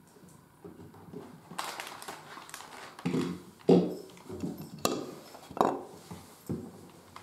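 Cat breakfast being handled at floor level: crinkling of a foil food packet and clinks and knocks of a dish, in an irregular run of sharp clicks from about a second and a half in.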